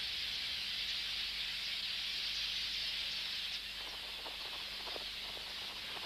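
The steady, dense high-pitched chatter of a large red-billed quelea breeding colony, blurred into a continuous hiss, with a few faint separate calls or rustles in the second half.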